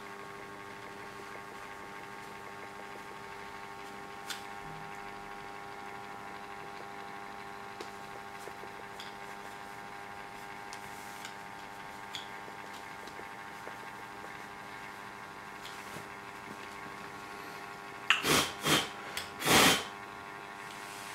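Steady electrical hum with several held tones from the small motor of a rotating coin display stand. Near the end it is broken by four short, loud noise bursts.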